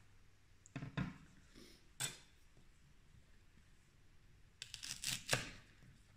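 A few knocks of handling about one and two seconds in, then a chef's knife cutting through a leek on a plastic cutting board: a quick run of cuts near the end, the blade knocking on the board, the last cut the loudest.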